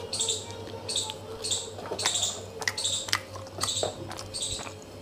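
Light clicks and knocks of food containers being handled in a fridge, over a steady hum. A high chirp repeats about twice a second throughout.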